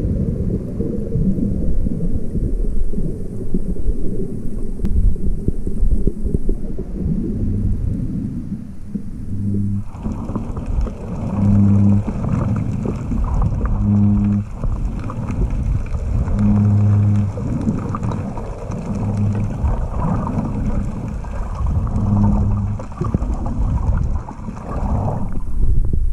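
Muffled underwater rumble and sloshing of shallow sea water around a submerged camera. From about a third of the way in, short low hums come every second or two over a brighter hiss, fading out near the end.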